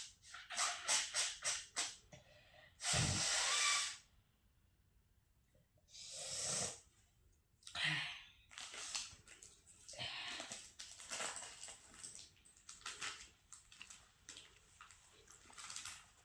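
A person sniffing and blowing their nose. A quick run of short sniffs comes first, then a long, loud nose blow about three seconds in, then more blows and breathy nasal sniffs.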